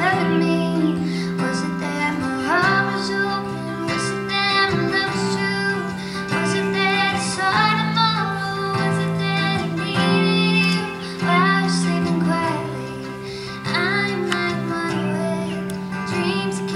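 A female singer sings a slow folk song over acoustic guitar accompaniment, her voice gliding between held notes above steady low chords.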